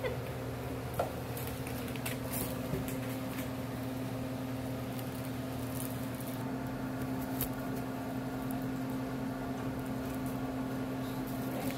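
Steady mechanical hum from a running appliance or ventilation unit, with a few faint clicks and rustles.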